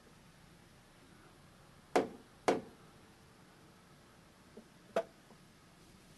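Three sharp metallic knocks on a milling machine, two close together with a short ring after each, then a single one a couple of seconds later. They come from handling the machine's head while its alignment is checked with a dial indicator.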